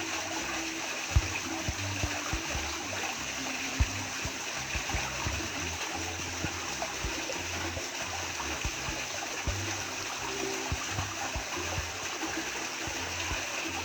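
Steady rushing of a rain-fed waterfall and river, with occasional low thumps on the microphone.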